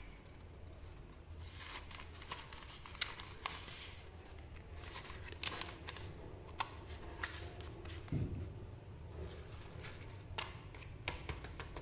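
Hands handling a small cardboard biscuit box and wrapped chocolate bars: scattered light taps, clicks and rustles over a steady low background hum.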